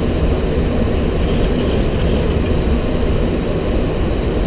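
Steady cockpit noise of a Boeing 737-800 on approach to land: an even rush of airflow and engine noise, heaviest in the low range.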